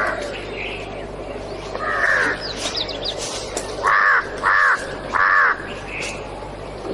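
A crow cawing: one caw about two seconds in, then three caws in quick succession between about four and five and a half seconds in.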